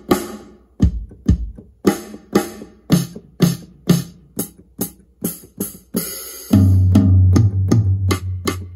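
Sampled drum sounds from the Audio Lounge Affair Drums software instrument: a string of separate kick, snare, hi-hat and cymbal hits, about two a second. Near the end comes a longer hit with a deep low tone that holds for about two seconds.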